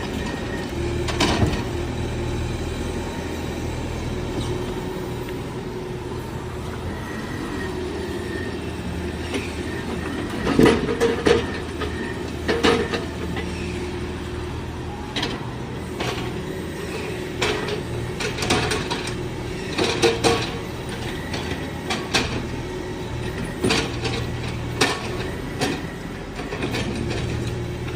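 BD95W wheel excavator's diesel engine running steadily while the machine works, with a steady whine over the drone. Repeated sharp clanks and knocks come from the working grapple and boom, several close together about ten to thirteen seconds in and more scattered toward the end.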